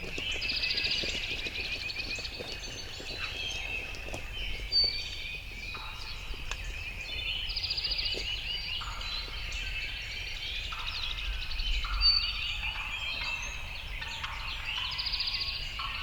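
Wild turkey gobblers gobbling again and again, a rapid rattling gobble every few seconds.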